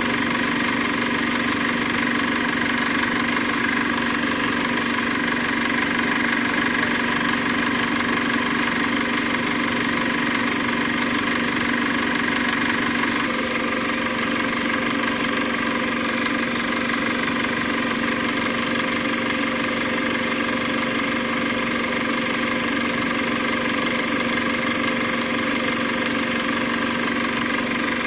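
Steady running of a machine: a constant hum with a fast, even clatter, shifting slightly in tone about halfway through.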